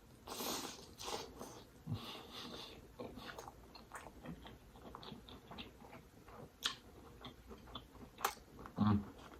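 Close-miked chewing of a lobster tail and creamy seafood pasta: wet mouth smacks and soft clicks come irregularly throughout. Near the end there is a brief low hum.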